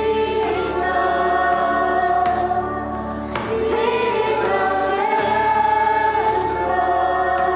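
A congregation sings a worship song with instrumental accompaniment, in long held notes, with a brief break between phrases partway through.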